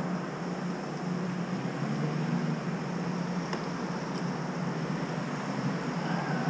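A steady low engine hum with traffic noise, and two faint ticks near the middle.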